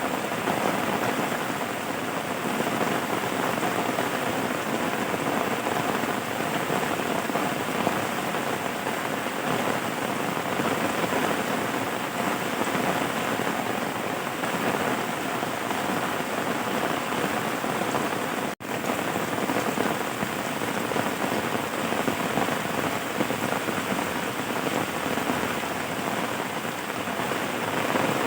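Steady rain falling on a surface, an even hiss of dense drops; it cuts out for an instant about two-thirds of the way in.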